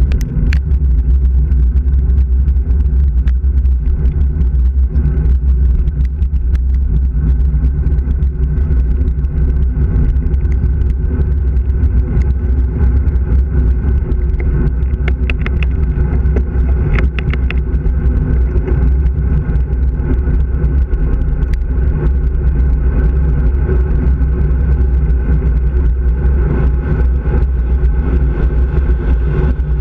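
Steady, loud wind and road rumble from a bicycle coasting fast downhill on a paved lane, picked up by a handlebar-mounted camera, with a few short rattling clicks around the middle.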